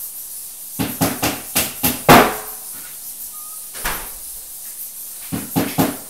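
Sharp knocks and clacks of flat-pack cabinet parts and hardware being handled and tapped. A quick run of light knocks comes about a second in, the loudest knock a moment later, another near the middle, and a fast run of knocks near the end.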